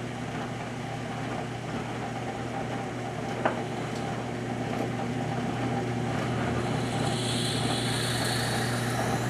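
Drill press running steadily with its motor hum while the bit bores a through-hole into a wooden fishing plug. A single sharp click about three and a half seconds in, and from about seven seconds in a higher hiss of the bit cutting deeper into the wood builds up.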